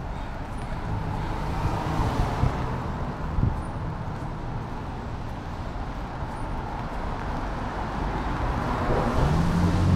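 Street traffic on a rain-wet city street: steady tyre and engine noise from passing cars. Near the end a vehicle's engine grows louder and its pitch rises slightly as it comes close.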